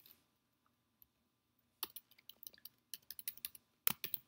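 Typing on a computer keyboard: a few key clicks at the start, a pause of about a second and a half, then a quick run of keystrokes.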